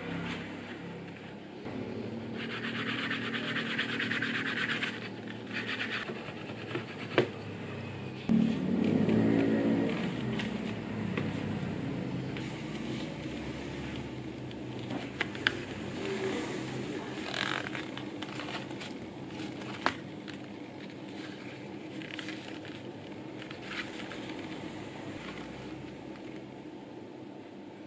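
Scraping and rubbing of a small stick worked along a leather wallet's edge, then the leather being handled, with a few sharp clicks. A low rumble is loudest for about two seconds, some eight seconds in.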